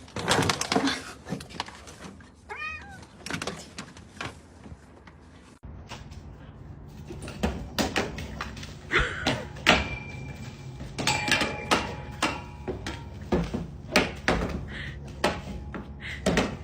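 A cat meows once, about three seconds in, followed later by a run of sharp knocks and clatters.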